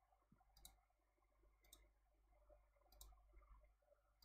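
Three faint computer mouse clicks, each a quick double click, about a second apart over near silence.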